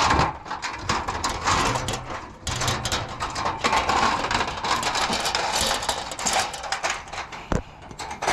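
Chain-link fence gate rattling and clinking as it is handled, a dense irregular run of metallic clicks and scrapes.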